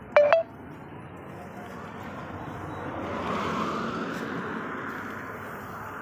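Two short, loud beeps at the very start, then a vehicle passing on the road: a broad whoosh that builds to a peak about halfway through and fades away.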